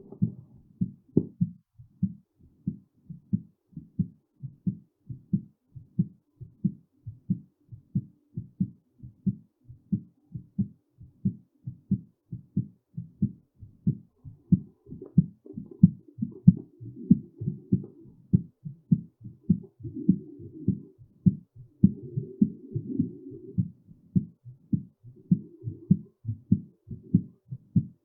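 Human heartbeat: a steady run of low, evenly spaced beats, with a soft rushing noise over them through much of the second half.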